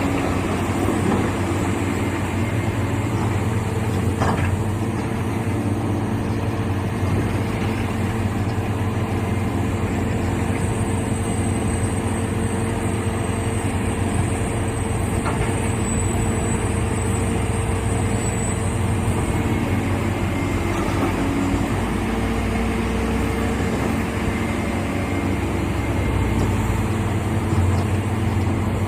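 Caterpillar 365 hydraulic excavator's diesel engine running steadily, with a couple of brief knocks.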